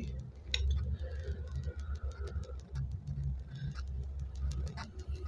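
Close handling noise of fingers turning a small gold-plated metal amulet figurine and a folding metal jeweller's loupe: low rubbing with scattered light clicks.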